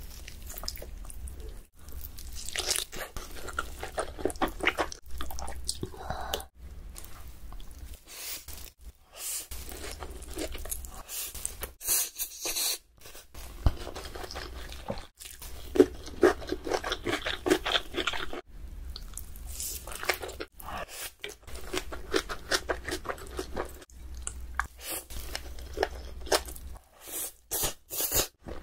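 Close-miked mukbang eating: crunching and chewing of crispy-skinned spicy roast chicken, in irregular crackly bites with short pauses, along with chewing of spoonfuls of jjapaghetti black-bean noodles.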